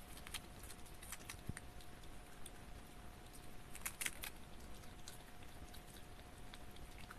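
Richardson's ground squirrel biting and chewing a crisp lettuce leaf: faint, scattered crunches, with a cluster of louder ones about four seconds in.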